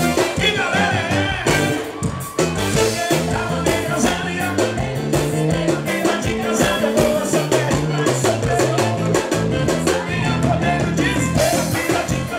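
Live forró music: a male singer with a full band, drums and bass keeping a steady beat.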